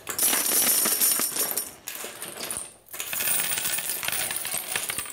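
Sikad (red-mouth stromb) sea snail shells clattering against a stainless steel bowl and each other as they are scraped out with a spoon into a pot. Rapid clinking in two spells, with a short break about halfway.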